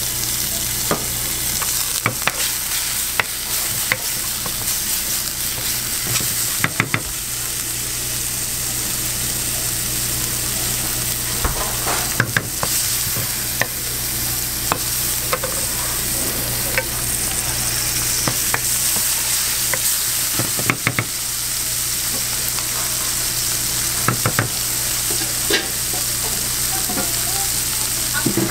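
Beef pieces sizzling in hot oil in a nonstick frying pan, a continuous frying hiss. Now and then a wooden spatula clicks and scrapes against the pan as the meat, garlic and onion are stirred.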